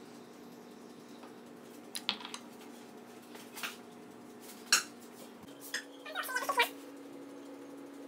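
Light clinks and taps of a ceramic bowl and glass dish as pizza toppings are laid on, over a steady hum that steps up slightly in pitch about halfway through. A short high-pitched animal cry comes near the end.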